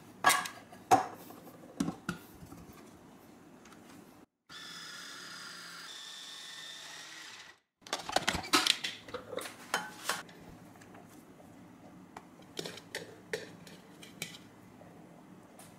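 Small electric food processor with a shredding disc grating carrots: the motor runs steadily for about three seconds, starting about four seconds in. Before and after it come sharp knocks and clatter of its plastic bowl and lid being handled.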